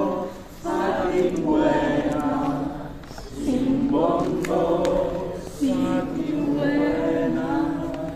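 A group of voices chanting together in unison, a short repeated phrase about every two and a half seconds, as a pre-show warm-up chant.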